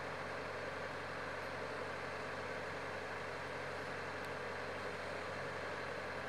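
Diesel engine of a road-rail excavator idling steadily: a constant low hum under an even hiss.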